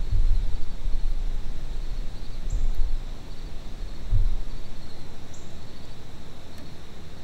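Low, gusting rumble of wind buffeting the microphone, over a steady high-pitched trill of insects.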